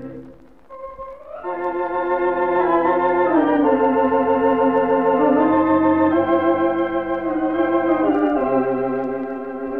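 Wurlitzer theatre organ playing a slow ballad: a brief pause, then full sustained chords that glide up into the melody line and hold on long notes. The recording dates from 1926–1933.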